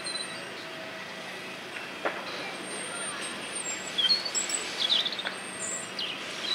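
Small birds chirping and twittering in short high calls over a steady background of distant outdoor noise, with a couple of brief sharp taps.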